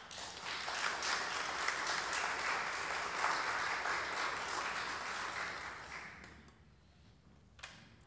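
Congregation applauding, starting at once and fading out after about six seconds. A single sharp click comes near the end.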